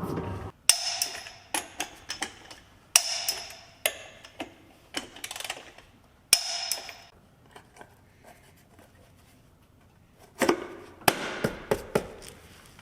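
Hand tools and parts being handled in a shop: a series of sharp clanks with a short ring, several quieter clicks between them, a quiet stretch of a few seconds, then another cluster of knocks near the end.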